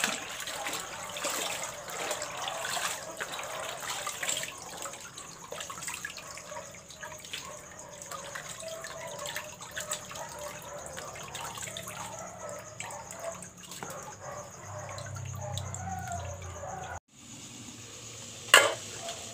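Water splashing and dripping as hands swish and rinse spinach leaves in a metal basin of water. Near the end, a single sharp metallic clank from an aluminium pot lid being lifted.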